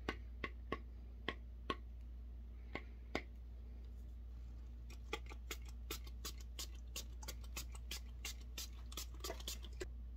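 A few sharp taps while superglue is dotted onto painter's tape. Then, from about halfway, a quick run of spritzes, about three a second, from a small pump-spray bottle of glue activator.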